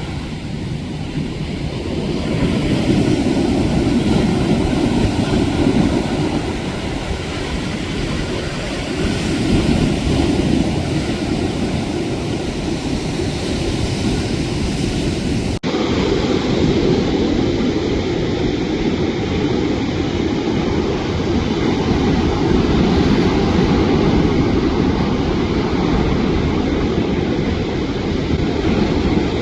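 Steady loud rushing of ocean surf, with an abrupt cut about halfway through where the sound shifts slightly.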